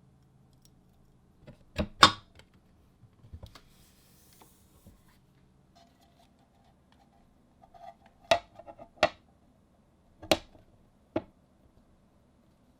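Sharp clicks and knocks of hard keyboard parts being handled, with a loud double knock about two seconds in, a faint rustle, then a handful more knocks in the second half.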